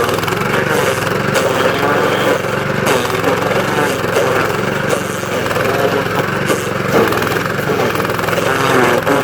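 DR stump grinder's gasoline engine running steadily as its cutter wheel grinds down a stump, with a few short ticks mixed in.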